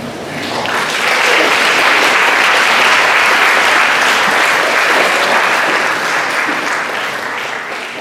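Audience applauding, building up over the first second, holding steady, then fading away toward the end.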